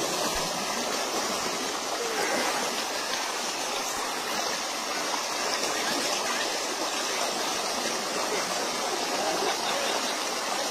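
Stream water rushing steadily down a small rock cascade, a continuous even splashing.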